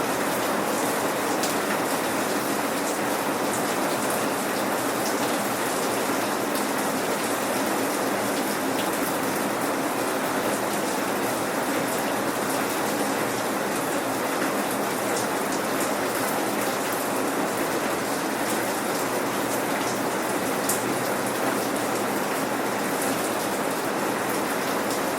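Steady light rain falling, raindrops pattering on surfaces with scattered sharper drip ticks, no thunder.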